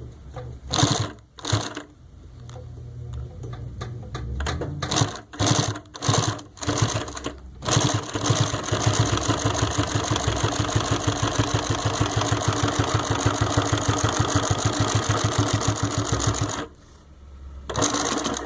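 Consew 339RB double-needle walking foot sewing machine, servo-driven, stitching through two layers of heavy leather. It starts with a few short, separate runs of stitches, then runs steadily at a fast, even stitch rhythm, stops briefly near the end and starts again.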